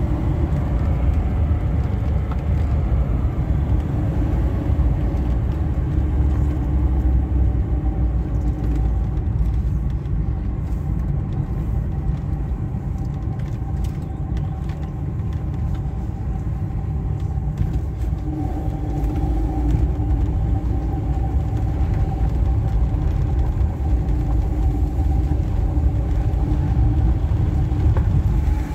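Inside the cabin of a 1985 VAZ-2107 Lada under way: its 1.5-litre four-cylinder engine runs with a steady low drone over road rumble. The engine note eases off through the middle and picks up again about eighteen seconds in.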